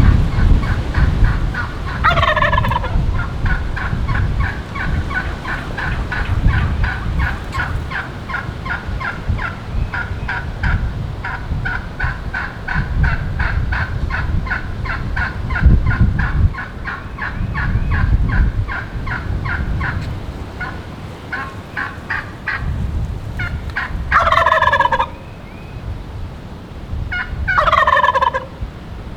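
A young male Rio Grande wild turkey (jake) gobbles loudly three times: once about two seconds in, then twice close together near the end. His gobble is as deep as a mature gobbler's. Between the gobbles runs a fast, even series of short calls, and strong wind rumbles on the microphone.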